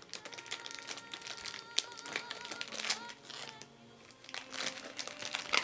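Clear plastic bag around a Play-Doh tub crinkling in irregular sharp crackles as it is handled and opened, over soft background music.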